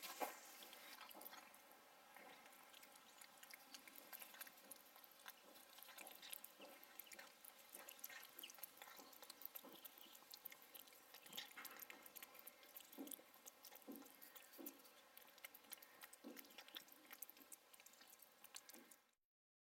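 Faint chewing and licking of a domestic cat eating chunks of wet meat from a stainless steel dish: soft, irregular clicks and smacks that cut off suddenly near the end.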